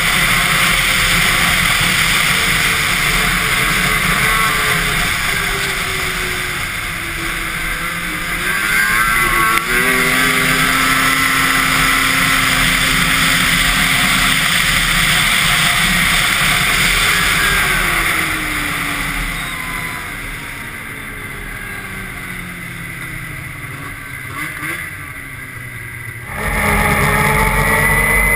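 Yamaha Nytro snowmobile's four-stroke three-cylinder engine and track running at speed, the engine pitch rising and falling with the throttle. It eases off and is quieter through much of the second half, then is suddenly loud again near the end.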